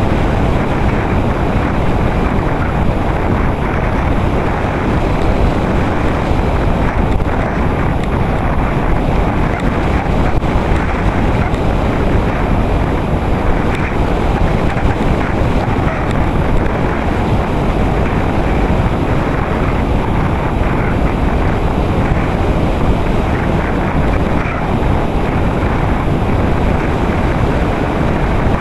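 Steady, loud rush of airflow over the microphone of a small camera on a Radian RC motor glider in flight, with a faint high steady whine above it.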